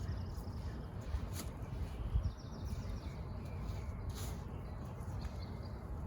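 Birds chirping in short high trills over a steady low rumble, with a couple of sharp clicks.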